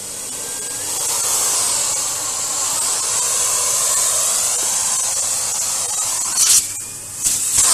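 Household vacuum cleaner with a narrow crevice nozzle running at high power, coming up to full speed in the first second and then giving a steady, loud rushing hiss as it sucks dust out of a pleated central-vacuum filter. Near the end the airflow note jumps, drops away briefly and surges again.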